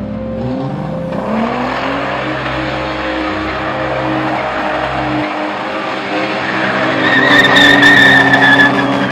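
BMW E30 320i drifting, its rear tyres skidding on asphalt with the engine running under load. The skid rises to a loud, high tyre squeal about seven seconds in.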